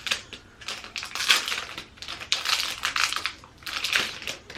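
Plastic packaging crinkling and rustling in several bursts as it is handled and opened to take out a makeup brush.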